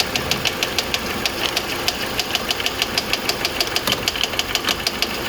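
Non-turbo Mini Cooper R56 four-cylinder engine idling with a rapid, even ticking knock, about six or seven ticks a second, from a bad idler pulley on the accessory belt: the death rattle of a failing idler pulley.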